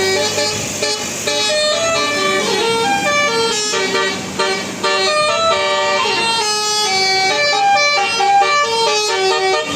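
Basuri telolet bus horn playing a melody: a run of held horn notes stepping up and down in pitch, at times several notes sounding together, without a break.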